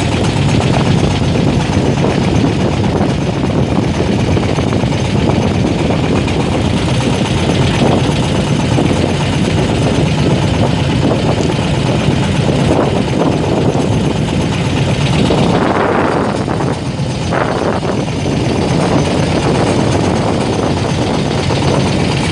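Wooden river boat's engine running steadily under way, a loud continuous drone with water and wind noise mixed in.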